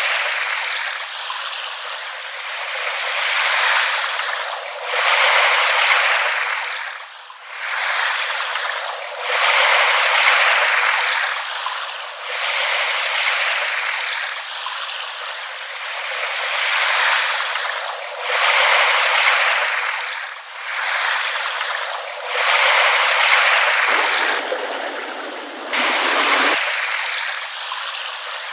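Small waves lapping on a shore, the wash swelling and fading every three to four seconds, thin and hissy with no low rumble.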